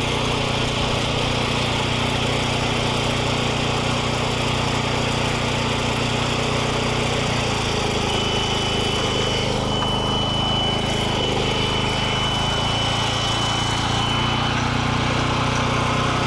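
Small portable petrol generator running steadily under load, its note shifting slightly about seven seconds in. A thin, high steady tone joins about eight seconds in and lasts about six seconds.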